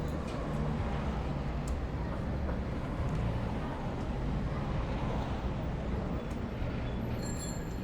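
Busy city street ambience: a steady rumble of passing road traffic, with a few faint clicks and a brief high-pitched squeal near the end.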